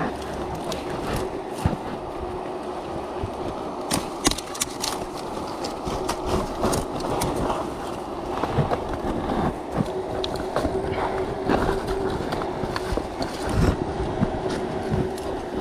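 Close rustling and knocking of clothing, ropes and leaves against a body-worn camera as a climber reaches and works. Under it runs a steady hum that grows stronger about two thirds of the way in.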